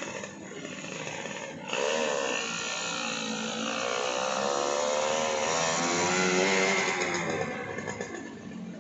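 Small underbone racing motorcycle's engine revving as the bike pulls away: a quick blip about two seconds in, then a sustained note climbing slowly in pitch as it accelerates, fading near the end as it moves off.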